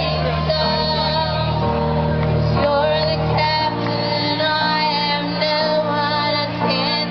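Live band music with a woman singing the lead.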